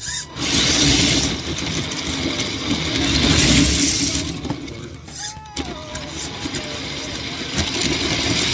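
Tamiya Knight Hauler RC semi truck driving, heard from on its chassis: the motor and drivetrain run in surges as the throttle is worked, with hard drift tyres sliding on a smooth floor.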